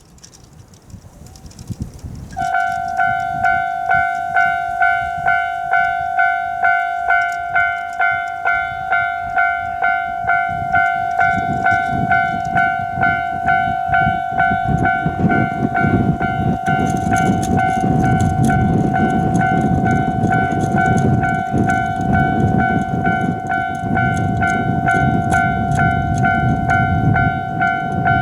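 Japanese level-crossing alarm starting about two seconds in: a bright two-tone ring repeated in a steady kan-kan rhythm, about three strikes every two seconds. From about eleven seconds in, a train's rumble builds underneath and goes on as the train runs through the crossing.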